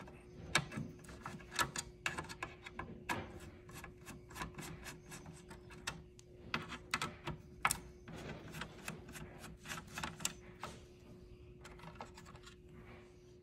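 A hand screwdriver backing small screws out of the circuit board of an old Nutone intercom unit: irregular clicks and scrapes of the screwdriver tip turning in the screw heads, thinning out near the end.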